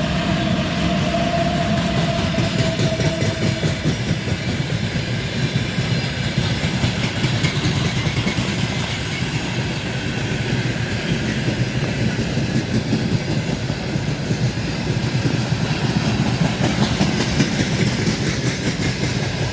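Freight train rolling past, its wagon wheels clattering over the rail joints in a steady, continuous rush. A steady whine fades out about four seconds in.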